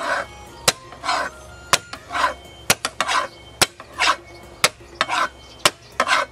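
Kitchen handling of scallions and ginger: sharp knocks about once a second, alternating with short scraping swishes.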